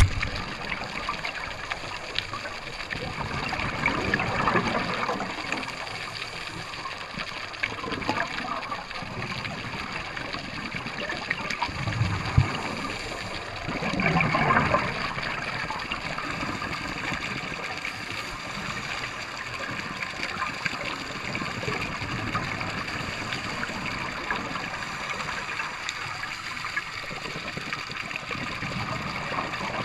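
Scuba divers' exhaled bubbles gurgling and trickling, heard underwater, with louder bubble surges about four and fourteen seconds in.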